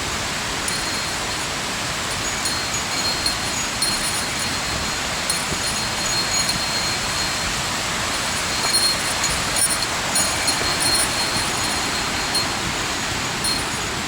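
Steady rush of a mountain stream or waterfall, with a small metal bell tinkling now and then over it.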